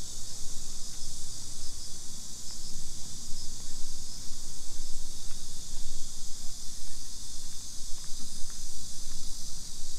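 Insects buzzing in a steady, dense, high-pitched chorus, over a low, uneven rumble.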